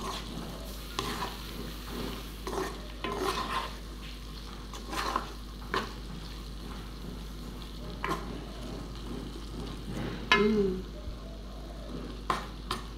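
Wooden spatula scraping and stirring sausage slices and anchovies in sambal in a frying pan, with irregular scrapes about every second over a steady sizzle.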